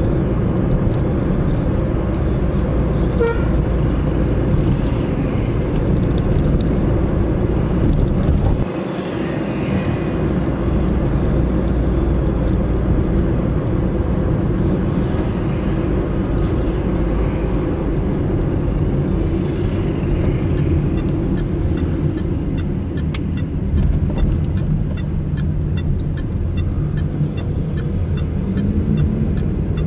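Car driving through busy city traffic: a steady low rumble of engine and road noise, with a short horn toot about three seconds in. The rumble dips briefly about nine seconds in.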